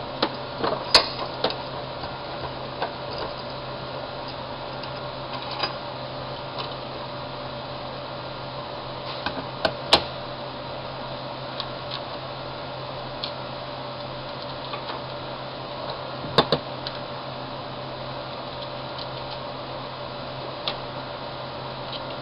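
Small metal and plastic parts of a die grinder being handled and fitted back together with hand tools: scattered light clicks and taps, a few sharper ones about a second, ten seconds and sixteen seconds in, over a steady low hum.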